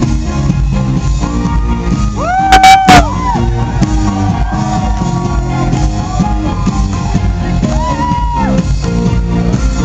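Electropop band playing live in a club, heard through a phone's microphone: a steady bass and drum beat under a woman's sliding, held vocal notes. About two and a half seconds in, a loud high voice rises and falls, so loud that it distorts the recording.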